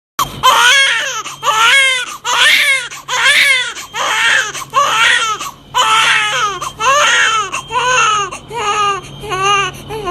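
Baby crying sound effect: a fast run of short wailing cries, about three every two seconds, each rising and then falling in pitch. The cries get shorter toward the end, over a faint steady low hum.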